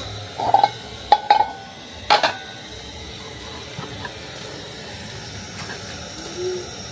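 Aluminium and plastic bowls knocking and clinking against each other several times in the first two and a half seconds, over a steady background hiss.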